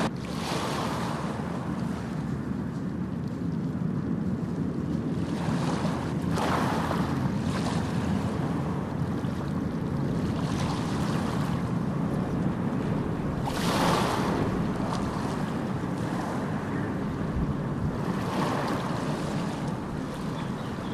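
A steady rushing noise, like surf or wind, that swells briefly a few times.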